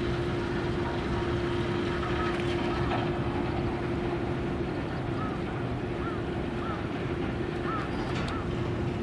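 Wind and low rumble of open-air harbourside ambience with a steady hum running under it, breaking off briefly twice. A few faint short chirps sound several times in the second half.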